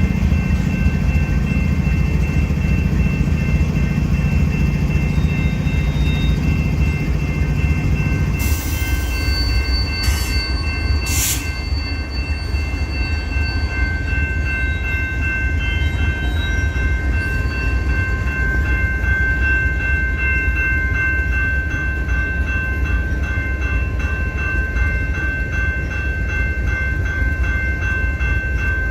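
Union Pacific freight train running, a steady low rumble with steady high tones over it and a few sharp clanks about nine to eleven seconds in.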